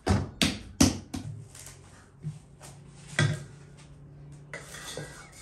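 Plastic cling film being pulled off its roll and handled over an enamel bowl, with sharp crinkles and clatters. Three come close together in the first second and another about three seconds in, with a softer rustle near the end.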